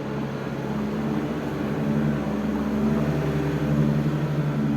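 A steady, engine-like hum with a low drone, growing a little louder about two seconds in.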